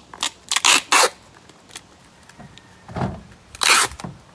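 Clear packing tape being pulled off a handheld tape gun and pressed around a cardboard bundle: several short ripping screeches in the first second, a dull thump about three seconds in, then a longer rip.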